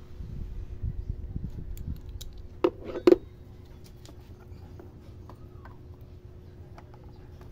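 Handling noise from fitting a motorcycle regulator rectifier onto its bracket: low rumbling for the first two seconds, then two sharp clicks about half a second apart around three seconds in, followed by faint ticks over a steady faint hum.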